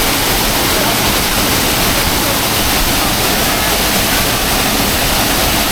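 Hot-spring waterfall pouring steadily: a loud, even rush of falling water.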